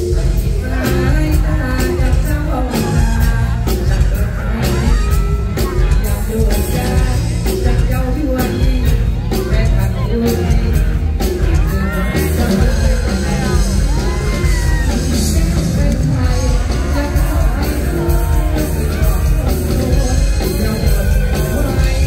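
Live Thai lam sing band music played loud through a stage PA, with a steady heavy bass beat and a singer's voice over it.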